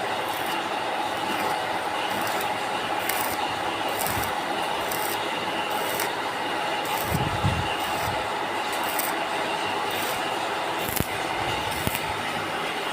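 Stick arc welding on a stainless steel frame: the arc gives a steady hiss with irregular, sharper flares of higher hiss.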